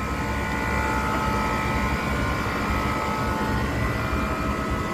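Steady mechanical drone: a low rumble with several steady whining tones held unchanged throughout.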